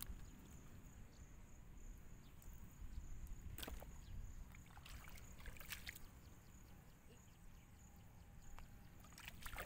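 Faint sloshing and splashing of shallow muddy water as bare feet and hands move through it, with a few short sharp clicks.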